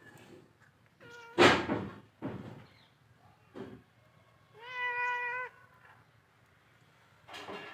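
Domestic cat meowing: one drawn-out meow held at a steady pitch about halfway through. A loud, short, noisy sound comes about a second and a half in, with a few fainter short sounds around it.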